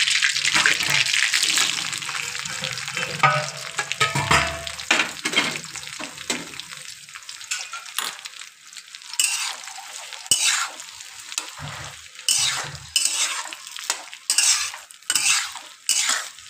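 Cut okra going into hot oil in a metal kadai: the oil sizzles loudly at first, with a few knocks around three to five seconds in, and the sizzle then dies down. From about nine seconds in, a metal spatula stirs the okra in repeated short scraping strokes against the pan, over the quieter frying.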